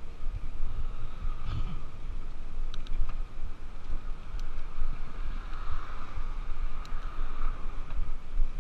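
Wind buffeting the microphone of a camera riding on a moving bicycle, with steady tyre and road noise underneath and a few light clicks.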